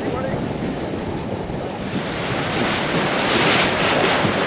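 Wind buffeting the microphone and sea water rushing past the hull of a rigid-hull inflatable boat under way; the rush grows louder and hissier about halfway through.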